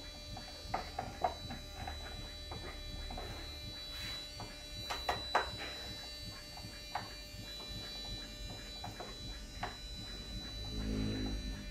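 Scattered light knocks and clicks from handling the 18-inch subwoofer driver inside its wooden horn-loaded cabinet, over a steady faint hum and a constant high tone.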